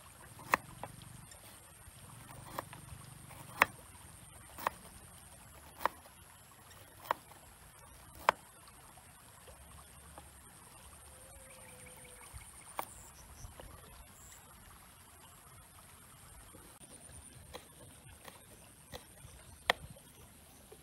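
A cleaver chopping on a wooden cutting board in single, separate strokes, about one a second for the first eight seconds, then a few more strokes spaced further apart.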